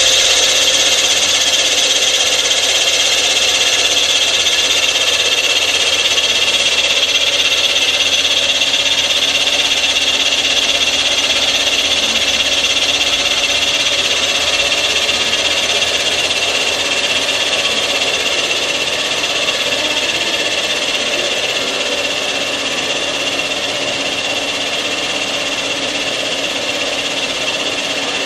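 Rottler F90Y CNC machine's spindle milling the cast-iron firedeck of a CAT 3500 engine block around the water holes: a steady, high-pitched cutting whine and hiss.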